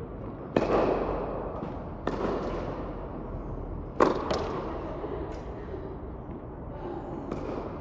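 Tennis serves: sharp racket-on-ball strikes and ball impacts, each followed by a long echo. Two loud strikes come about half a second in and about four seconds in, with lighter knocks between them.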